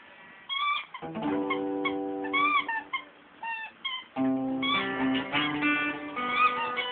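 Background music led by guitar, with several short high rising-and-falling calls over it.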